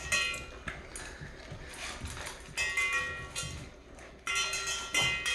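Dogs moving about on a hard floor, claws clicking and ticking, with a few short high tones in between.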